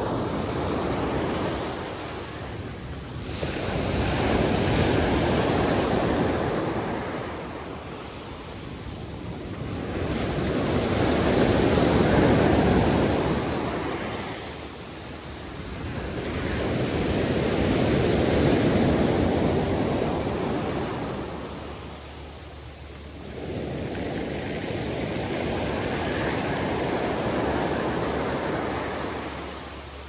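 Sea waves washing in as surf, the rush swelling and ebbing in slow surges about every six to seven seconds, five in all.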